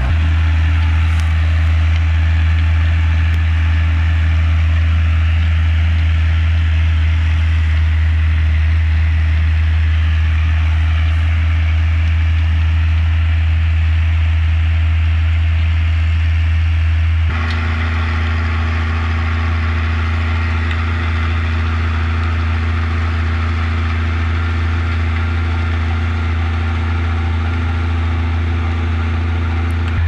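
Ursus 1634 tractor's six-cylinder turbocharged Martin Diesel Z 8602.12 engine running steadily under load, pulling a disc harrow, through a straight-through stainless-steel exhaust pipe. The engine note changes abruptly a little past halfway and then holds steady again.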